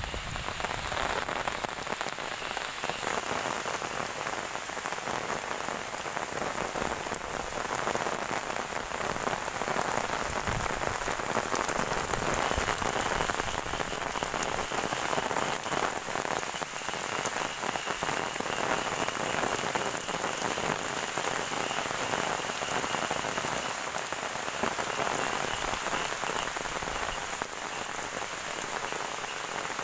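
Steady heavy rain falling on grass and a wet paved lane, an even hiss with no breaks.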